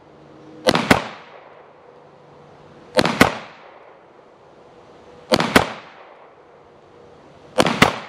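SIG M17 9mm pistol firing four double taps, each pair of shots about a quarter second apart and the pairs a little over two seconds apart. Each shot has a short echoing tail.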